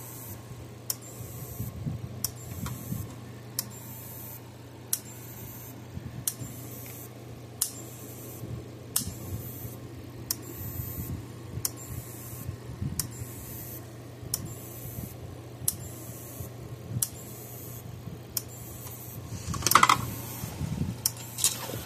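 Cashmans CS6000 electric fence charger pulsing about once a second, each pulse a sharp snap as its output sparks to a screwdriver held across the terminal. The steady, even pulsing shows that the repaired charger is working again. A louder clatter comes near the end.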